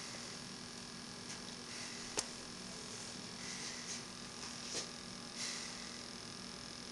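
Steady low electrical hum, with a few soft breaths in and out through the nose into nasal prongs and a sharp click about two seconds in.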